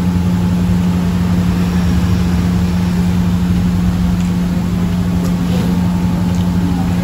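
A steady machine hum: a constant low drone with a rumble beneath it, unchanging throughout.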